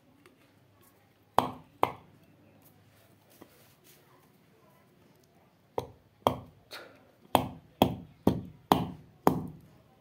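Sharp metal knocks with a short ring, two close together, then a run of about eight at roughly two a second: tapping to knock off a fan's worn upper ball bearing during the repair.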